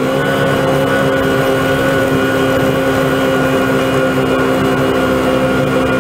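Vehicle-mounted snow blower working through deep snow, its engine and impeller running at a steady speed with a constant drone and a steady higher whine, heard from inside the cab.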